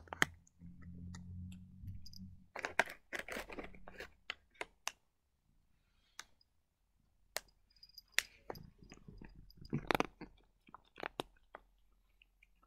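Cat chewing crunchy dry treats: irregular crisp crunches in two bouts, one in the first half and one after a short pause.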